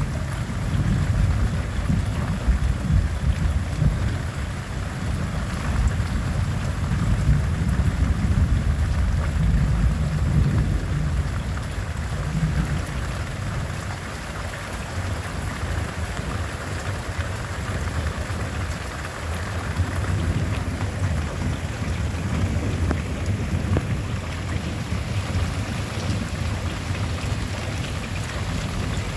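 Steady heavy rain hissing through a thunderstorm, with a long, low rumble of thunder that rolls through the first half and eases off about halfway.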